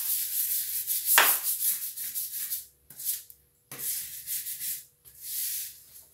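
Stiff bristles of a plastic scrub brush scrubbing wet ceramic floor tiles in quick back-and-forth strokes, working oxalic acid cleaner into crusted stains. The scrubbing runs without a break for the first couple of seconds, then goes on in shorter bouts with brief pauses.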